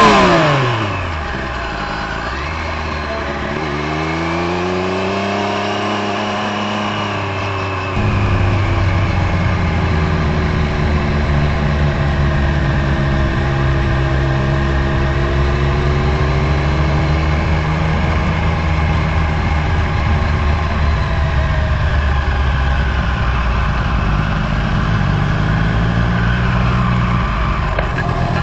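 Motorcycle engines. A loud one sweeps by at the start, its pitch dropping sharply. An engine then revs up and back down, and from about eight seconds a steadier, louder engine note with a low rumble runs on, its pitch drifting slowly.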